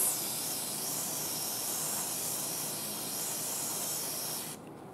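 Aerosol can of brake parts cleaner spraying through its straw nozzle: one steady hiss that cuts off suddenly near the end.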